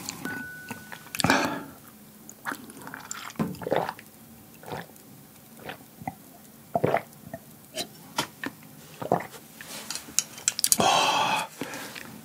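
Close-miked gulps and swallows of a drink from a glass, a series of short irregular wet clicks, with a loud breath out near the end.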